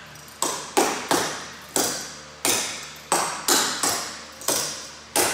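Metal clogging taps on a dancer's shoes striking the floor in a step sequence: about eleven sharp taps in an uneven rhythm, each ringing briefly.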